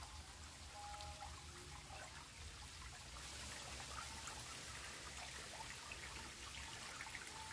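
Water from a reservoir outflow trickling and running steadily into a river pool, faint and even.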